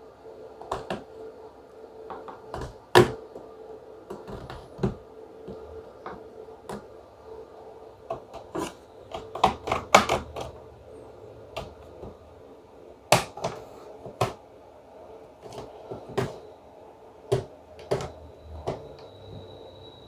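Plastic retaining clips of a Dell laptop's bottom panel clicking and snapping loose as it is pried off with an opening tool and pulled slowly away. Irregular sharp clicks, the loudest about three seconds in and again around ten and thirteen seconds.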